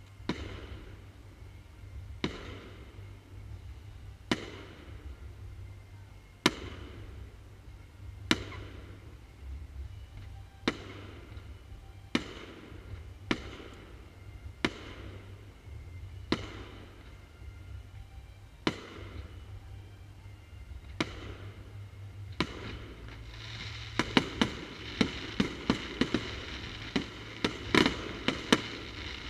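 Fireworks shells bursting one after another, a sharp bang every second or two, each fading off in a long echo. About 24 seconds in, the bangs come thick and fast in a rapid flurry.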